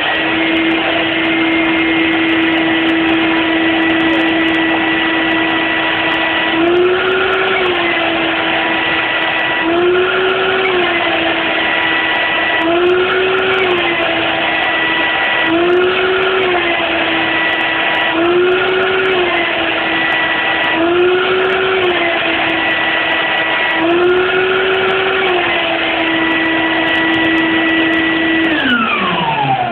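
Shop vac motor (2 peak horsepower, 9.3 amps) running as a blower with a steady whine. From about seven seconds in, its pitch rises briefly about every three seconds as the gravity engine's tank fills and vents. Near the end it is switched off and winds down with a falling pitch.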